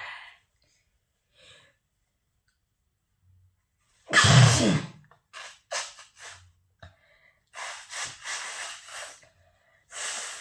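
A person sneezes once, loudly and with a voiced cry, about four seconds in. Several shorter, breathy, hissing bursts of air follow.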